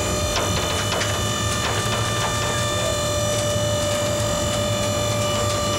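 A fire engine's powered ladder rack lowering from the roof: a steady motor whine over a low engine hum, with scattered clicks from the moving rack.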